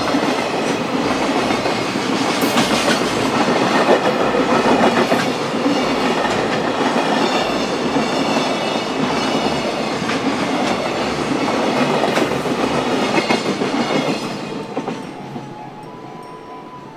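A long JR Freight container train rolling past a level crossing, its wagons' wheels clattering over the rail joints. The noise falls away about three-quarters of the way through as the last wagon goes by, and the level-crossing warning bell keeps ringing near the end.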